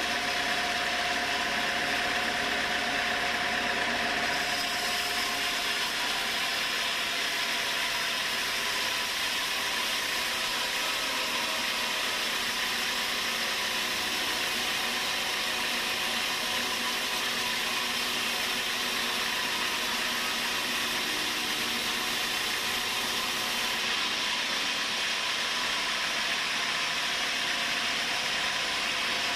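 Sawmill machinery running steadily: a dense, even hiss with a few steady humming tones through it. A little change in the sound about four seconds in and again near the end.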